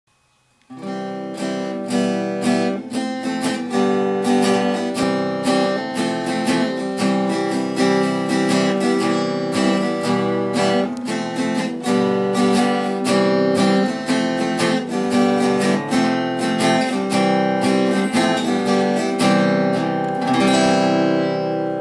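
Intro music: an acoustic guitar strummed in a steady rhythm, starting about a second in, with the last chord left ringing near the end.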